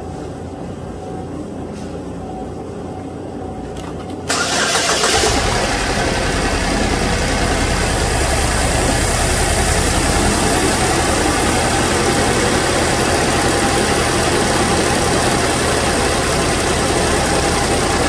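A 2012 Chevrolet Equinox 2.4 L four-cylinder engine is started about four seconds in: a short crank and catch, then a steady idle. The number-two ignition coil is firing into a spark tester rather than its plug, and it shows good spark.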